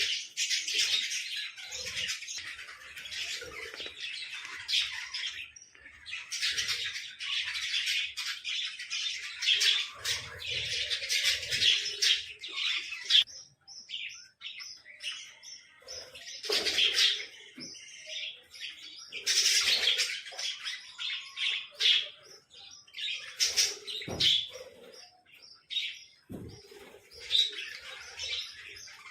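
Small birds chirping and chattering in dense, rapid high-pitched bursts, with brief pauses between bouts.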